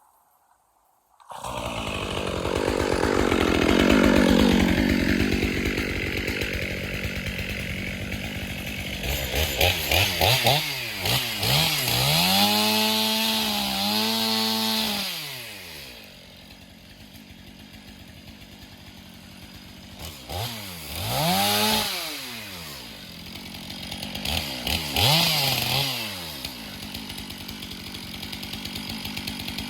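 Stihl pole saw starting up about a second in and running as it cuts branches. Its pitch dips and rises several times as the chain loads in the wood, and it eases to a quieter run for a few seconds in the middle.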